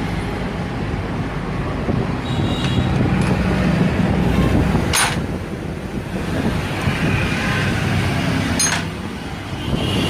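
Steady rumble of motor vehicles and road traffic, with two short, sharp clicks: one about halfway through and one near the end.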